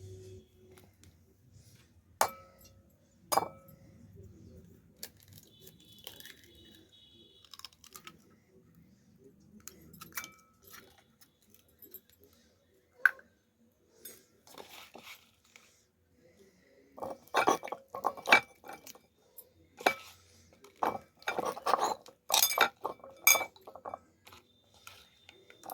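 Utensils clinking and knocking against a bowl while ingredients are added and mixed: a few separate sharp clinks early on, then a quick run of clinks and scrapes in the second half.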